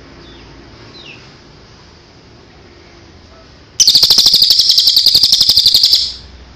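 A songbird singing: a few faint chirps, then a loud, very rapid trill lasting about two seconds that cuts off shortly before the end.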